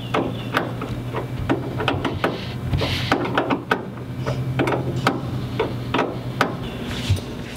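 Irregular sharp clicks and light knocks of hand and tool work on a biplane's airframe beside the engine, over a steady low hum.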